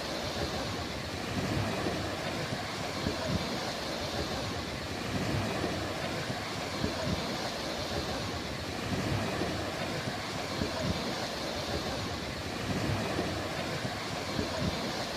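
Sea waves washing onto a beach: a continuous rushing surf that swells and eases every couple of seconds.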